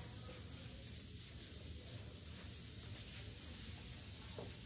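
Eraser wiping a chalkboard, a steady rubbing hiss held through the strokes.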